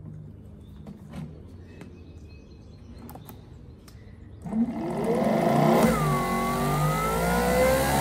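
Greenworks Pro 3000 PSI brushless electric pressure washer: a faint low hum, then about four and a half seconds in the motor and pump start up with a rising whine and run loud under the hiss of high-pressure spray through the 15-degree nozzle, pressure building toward about 2500 PSI.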